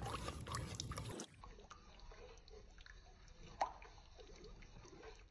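Wooden spatula stirring milk and melted ghee in a pan: faint sloshing and scraping with small clicks. It drops quieter after about a second, with one sharper click a little past the middle.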